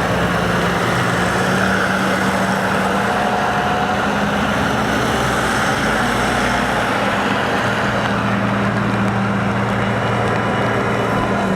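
Vehicle engines idling steadily, with a low hum under a constant wide hiss.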